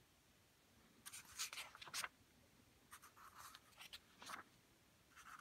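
Faint rustling of thin Bible-paper pages being turned by hand. After about a second of quiet there is a cluster of brushes, then several lighter ones.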